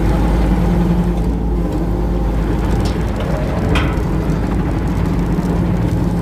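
Hitachi ZX35 mini excavator's diesel engine running steadily, with a brief sharp clink a little past halfway.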